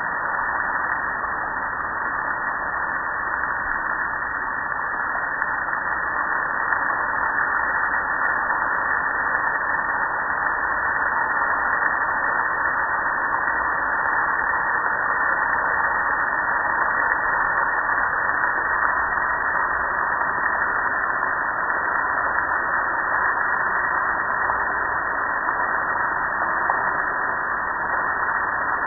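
Water spraying from a hose nozzle onto a gas grill's metal body and splashing onto concrete: a steady hiss.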